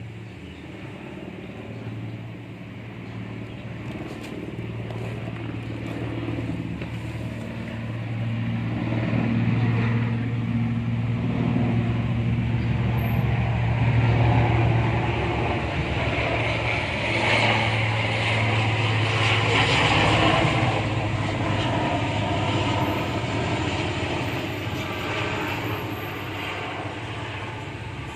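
A vehicle passing by: a steady engine drone that builds over about fourteen seconds, stays loudest through the middle, then fades away.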